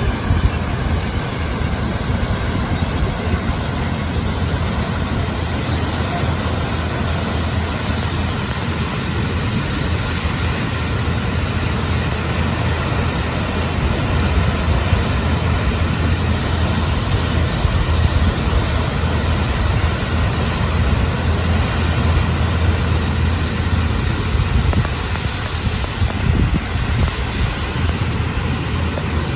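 Wind buffeting the microphone: a steady rushing noise with a heavy, flickering low rumble that swells and eases slightly.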